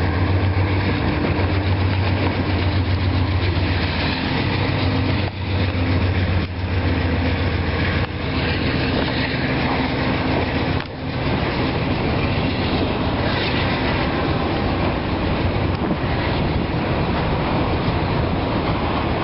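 CSX diesel locomotive running past close by, its engine a steady low drone with a second, higher tone above it. About eleven seconds in the engine tones fade and an even rushing noise of the train rolling by carries on.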